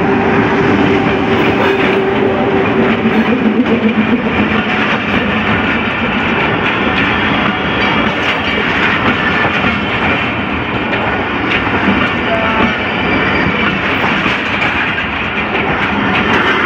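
Passenger train passing close by: a diesel locomotive's engine hum in the first couple of seconds, then coaches rolling past with a steady rumble and clacking wheels.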